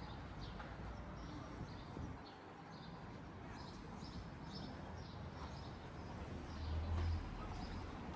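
Small birds chirping over and over in quick short calls, above the steady low hum of a busy pedestrian street. The low rumble swells briefly near the end.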